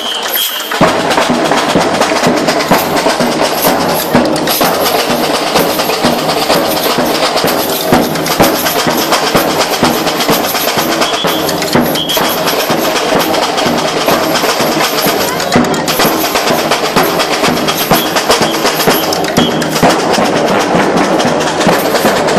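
Street percussion band playing a steady, dense drum groove on surdo bass drums struck with mallets, snare drums and a metal jingle shaker. The deep bass drums come in just under a second in.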